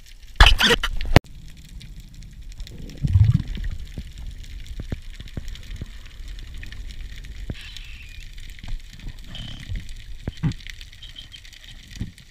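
Underwater camera audio: a steady muffled water murmur with scattered sharp clicks and low thumps from a diver swimming and handling gear. A loud rushing burst about half a second in cuts off abruptly just after a second, and a low rumble comes about three seconds in.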